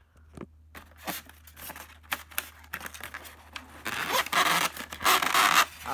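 Styrofoam packing insert being pulled out of a cardboard box: scattered scrapes and knocks at first, then a louder, continuous foam-on-cardboard scraping and rubbing from about four seconds in.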